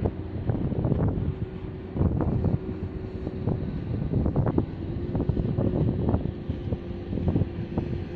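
Gusty wind buffeting the microphone in irregular rumbling blasts, over a faint steady engine drone from a small motorboat speeding past across the water.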